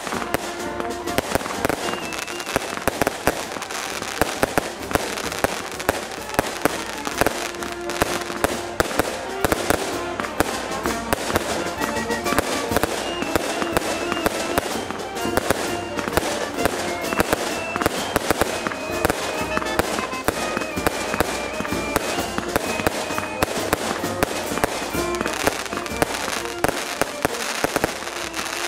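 Aerial fireworks bursting one after another, a dense run of sharp bangs and crackling.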